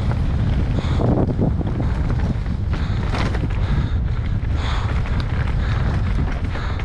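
Mountain bike ridden fast down a rough enduro race stage: wind buffets the microphone in a steady low rumble while the tyres and bike clatter over the ground in many short knocks. A few brief high-pitched squeals come through, about a second in and again near the middle.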